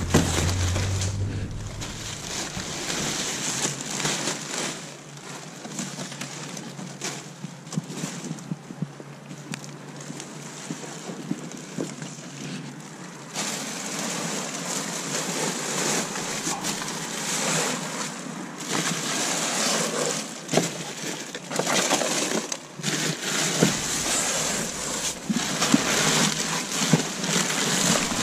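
Rustling, crinkling and knocking of cardboard boxes and packaging being rummaged through in a dumpster, many irregular crackles over a steady hiss.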